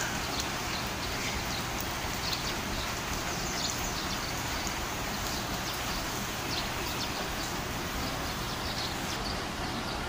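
Steady rain falling on a tiled courtyard and splashing into standing water, with short high bird chirps scattered through.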